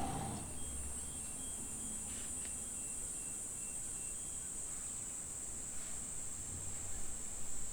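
Continuous shrill, high-pitched buzzing of insects: a steady evening insect chorus. Faint short high notes repeat through the first half.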